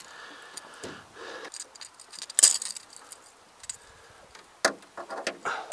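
Metallic jingling and clicking of fishing tackle being handled: a rattling lipless crankbait (Rat-L-Trap) and its treble hooks, with several sharp knocks of gear in the boat, the loudest about two and a half seconds in.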